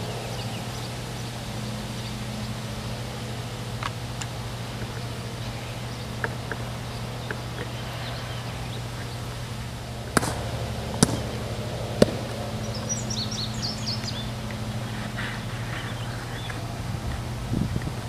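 Outdoor background with a steady low hum, a few bird chirps, and three sharp knocks about ten to twelve seconds in.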